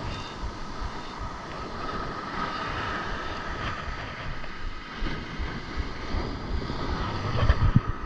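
Surf breaking and washing up the sand, with wind buffeting the microphone; a stronger gust thumps on it near the end.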